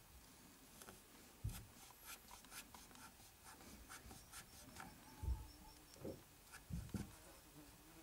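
Small knife cutting and scraping a green willow stick, a string of short scratchy cuts with a few dull knocks from the handling.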